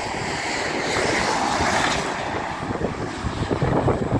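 A TransPennine Express Class 185 diesel multiple unit running past on the main line: a steady rushing noise of engine and wheels that swells about a second in and eases off. Wind buffets the microphone throughout.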